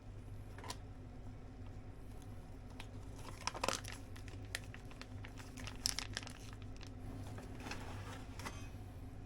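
Intermittent crinkling and rustling with small clicks, like something being handled or crumpled, over a low steady hum.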